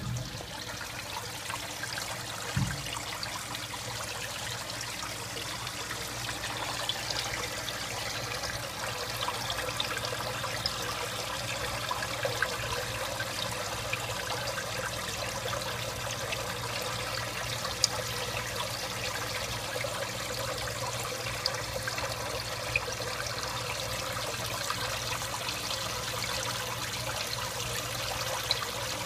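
Aquarium filter water trickling and splashing steadily into the tank over a low steady hum, with one soft bump about two and a half seconds in.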